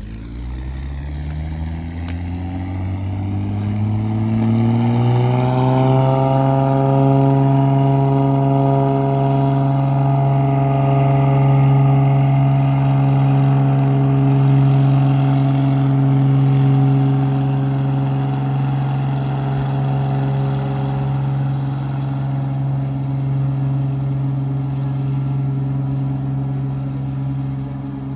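A large engine winding up, rising in pitch over about six seconds, then running loud and steady at one pitch.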